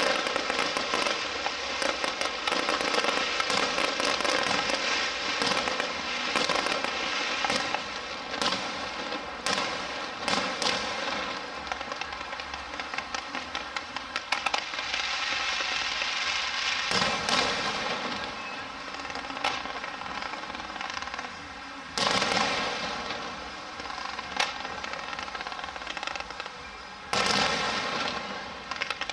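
Aerial fireworks going off in rapid succession: dense crackling and sharp reports, with heavier bangs about a third of the way in, again near two-thirds, and near the end.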